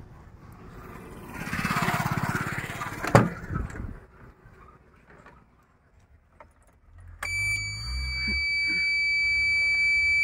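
Engine noise rises and fades, then a single sharp thump, likely the cab door shutting, about three seconds in. From about seven seconds a steady high-pitched electronic beep tone with a low hum sounds from the Tata Ace Gold's dashboard as the ignition is switched on, ahead of starting; it cuts off suddenly at the end.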